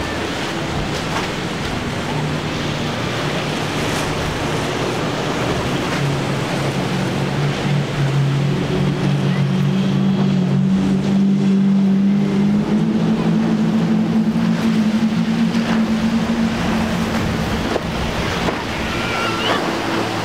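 Single Yamaha 100 hp outboard motor on a small center-console boat running under way through choppy inlet water, over steady wind and wave noise. About a third of the way in its pitch climbs and it grows louder as the boat speeds up, then it holds steady.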